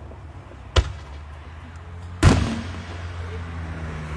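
Two aerial fireworks shells exploding: a short sharp bang about a second in, then a louder boom just after two seconds that echoes and dies away slowly.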